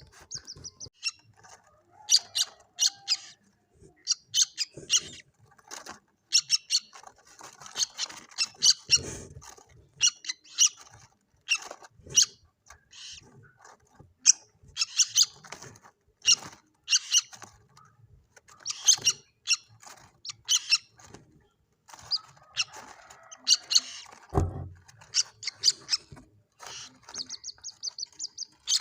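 Common moorhen chick calling: many short, high chirps in quick clusters, with a fast trill near the start and again near the end. A single low thump comes about 24 seconds in.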